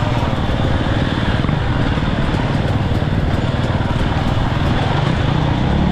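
Off-road vehicle engine running steadily under load, loud and close, its pitch rising and falling a little with the throttle.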